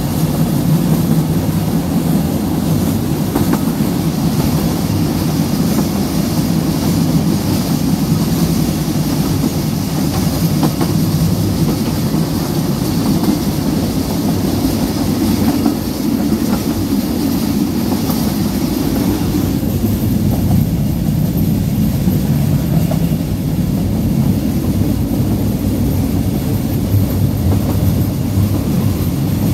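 Narrow-gauge passenger train running steadily, heard from one of its open carriages: a continuous rumble and rattle of the carriage on the track, with occasional faint clicks from the wheels.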